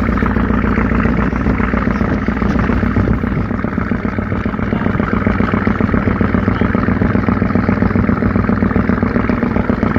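A ferry's engine running steadily under way: a constant low drone with a rushing noise over it.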